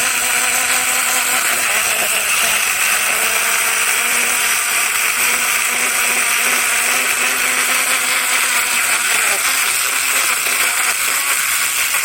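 21V cordless electric chainsaw running steadily, its chain cutting through a branch.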